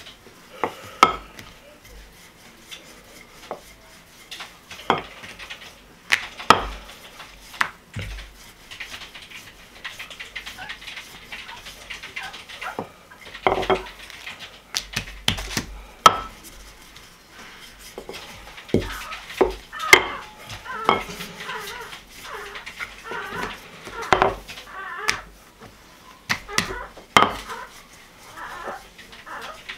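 Wooden rolling pin rolling out dough on a countertop: scattered sharp knocks and taps at irregular intervals as the pin is worked over the dough and set down on the counter.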